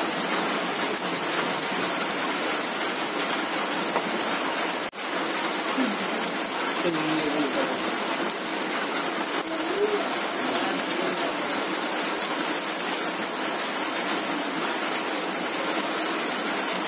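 Open wood fire burning under fish roasting in a wire grill basket, with a dense, steady crackle and hiss. The sound cuts out for an instant about five seconds in.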